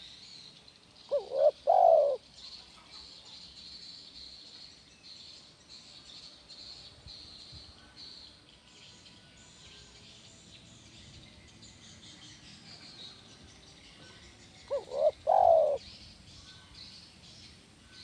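Spotted dove cooing twice, about thirteen seconds apart, each call a short phrase of two quick notes followed by a longer one.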